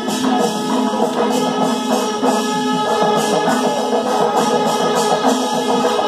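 Kerala temple percussion ensemble (chendamelam) playing live: ilathalam hand cymbals clash in a steady rhythm over the drums, with a steady held tone sounding in long stretches underneath.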